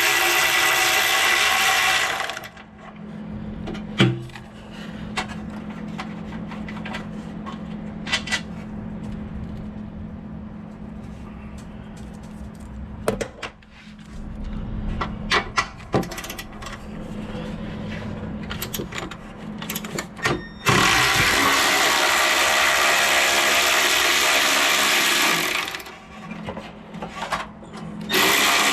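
A power tool running in three bursts of loud hissing noise: about two seconds at the start, about five seconds later on, and a short one near the end. Clanks and clicks of tools and metal parts fall between the bursts, over a steady low hum.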